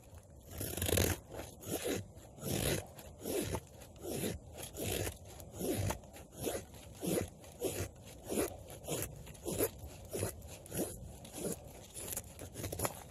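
Quickhatch Quicklore knife blade shaving a dry stick into a feather stick: a steady run of short scraping cuts, a little under two strokes a second, each stroke peeling off a curl of wood.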